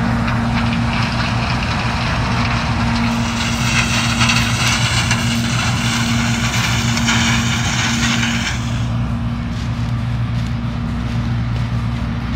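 John Deere 6620 combine's diesel engine running steadily under harvesting load. A brighter rushing, rattling noise joins from about three seconds in and falls away about eight and a half seconds in.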